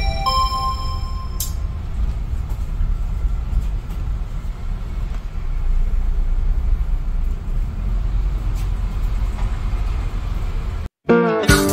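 City bus driving slowly, a steady low rumble from the engine and running gear heard from inside the bus. The last notes of a song die away in the first second or so, and new music starts just before the end after a brief dropout.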